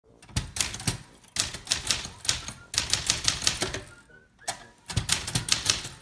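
Olympia SM8 manual typewriter being typed on: quick runs of sharp typebar strikes on the platen, with short pauses between runs and a longer pause a little past the middle.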